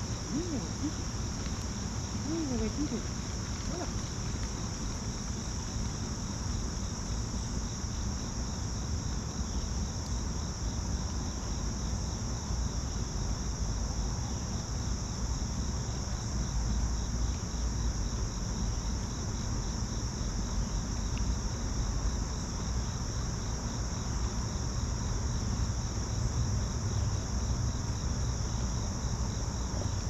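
Steady high-pitched chorus of insects, with a low rumble underneath.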